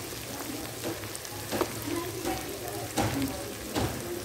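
Chopped tomatoes and green chillies frying in hot ghee in a clay pot, a steady sizzle. Three short knocks come in the second half.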